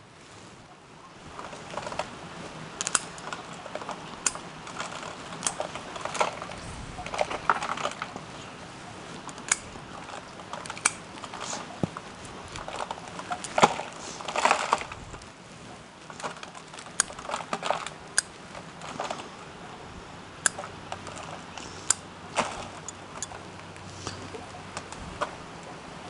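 Dead, rotted roots and old fine potting substrate being pulled and snapped off a Cattleya orchid's root ball by hand, giving irregular dry crackles, snaps and rustling, with crumbs of substrate dropping onto the bench.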